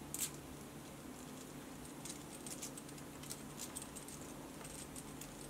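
Small metal clicks and clinks of a stainless steel U-shackle and its screw pin being handled, with one sharper click just after the start and scattered light clicks later on. A faint steady low hum runs underneath.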